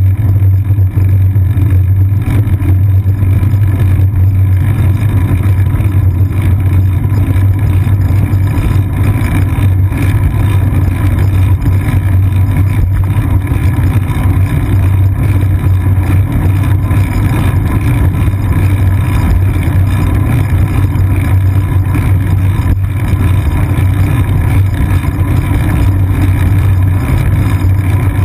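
Steady low rumble of wind and road vibration picked up through a seat-post-mounted GoPro Hero 2 on a moving bicycle, with a constant deep hum.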